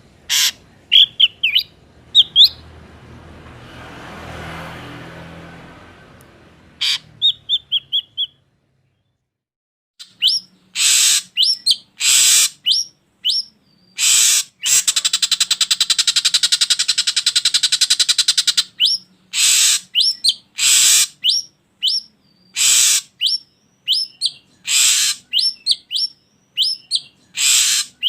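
Drongo calls: a string of short, clear whistled notes, then a brief silence about nine seconds in. Loud harsh, rasping calls follow, with a long, fast buzzing rattle in the middle of that stretch.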